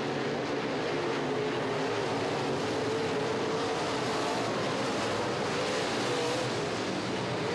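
Dirt-track modified race cars' engines running at racing speed: a steady mechanical noise with an engine pitch that wavers up and down as the cars circle.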